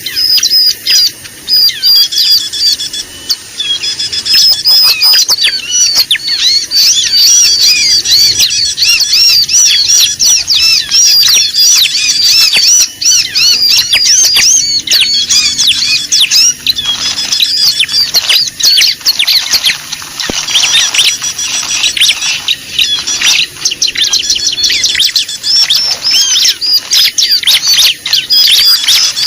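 A dense, loud chorus of many small birds chirping and twittering at once, rapid overlapping high notes without pause: a noisy bird-lure recording of the kind played to attract small birds.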